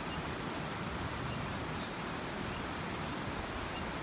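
Steady rush of river water running over stones, with wind rumbling on the microphone.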